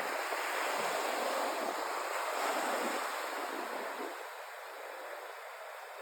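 Ocean surf washing ashore: a steady rush that eases off about four seconds in.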